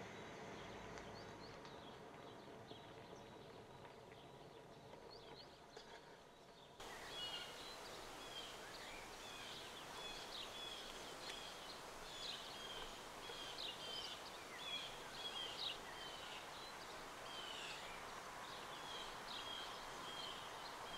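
Faint outdoor ambience with small birds chirping. About seven seconds in, the background changes abruptly to a louder steady hiss, with frequent short bird chirps over it.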